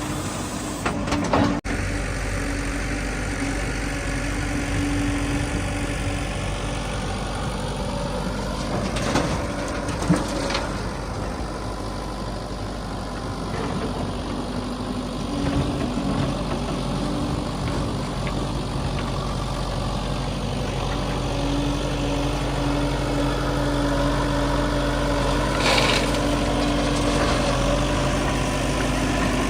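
Heavy diesel engine running steadily near idle, with a few sharp knocks about a second in and brief clanks around ten seconds and near the end.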